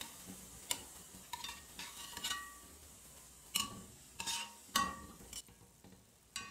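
A steel slotted spoon and a wire mesh strainer clinking and scraping against a stainless steel frying pan as fried bondas are scooped out of hot oil. There are about eight separate clinks, several of them ringing briefly, over a faint sizzle of the oil.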